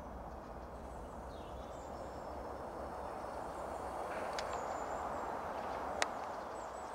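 Woodland ambience: a steady background rush with faint, high bird chirps, and two sharp taps, about four and six seconds in, the second the loudest.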